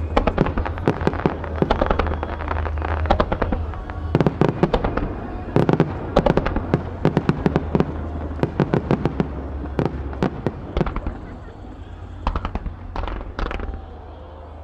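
Aerial firework shells bursting in quick succession, dense sharp bangs and crackling that thin out after about eleven seconds, with a few last bangs near the end.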